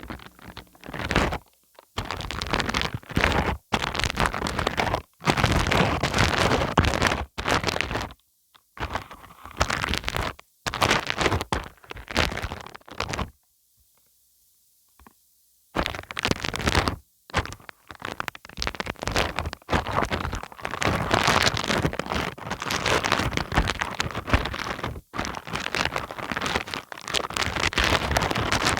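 Wood glue being worked over a wide surface: irregular bursts of sticky crackling and scraping, broken by short gaps and a silent pause of about two seconds around the middle.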